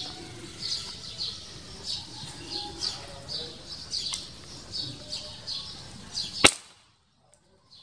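Small birds chirping over and over in short high notes, then a single sharp rifle shot about six and a half seconds in.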